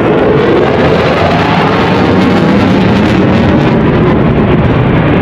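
Loud, steady jet noise from a Eurofighter Typhoon's twin EJ200 turbofan engines as the fighter flies its display manoeuvres.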